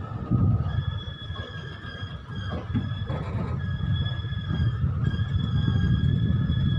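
Passenger train coaches rolling slowly on the track as the train picks up speed to around 10–20 km/h, a low rumble of wheels that grows louder, with thin steady high-pitched tones over it.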